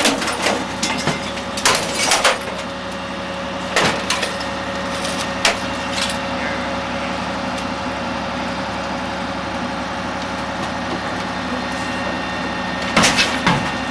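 Garbage truck compactor running with a steady mechanical drone, broken by sharp cracks and crunches of trash, such as TVs and glass, breaking as it is crushed. The cracks come several times in the first six seconds and again in a cluster near the end.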